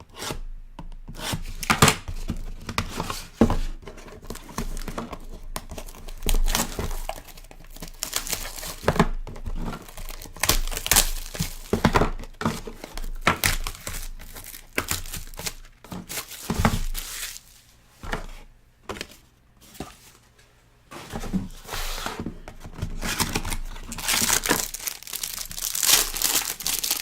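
Plastic wrapping being torn open and crumpled, with crinkling and rustling as a trading-card box is unwrapped and handled. It goes in irregular bursts, eases off for a few seconds about two-thirds of the way through, then turns into denser crinkling near the end.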